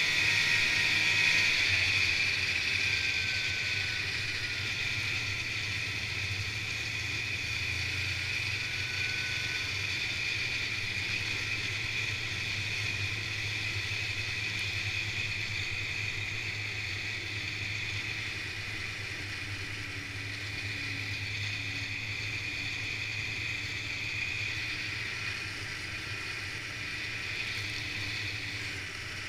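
Snowmobile running steadily while riding along a packed snow trail, its engine and track a steady drone, a little louder in the first few seconds.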